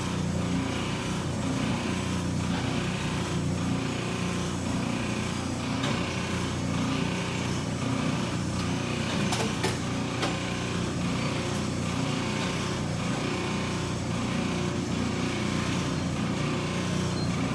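A motor-driven machine running steadily: a constant low hum with a regular pulse about three times every two seconds.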